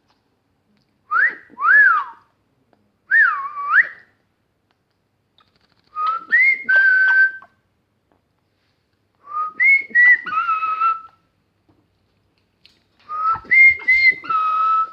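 Whistling in five short phrases. First come two quick rising-and-falling swoops, then three longer phrases of stepped notes, each a few seconds apart.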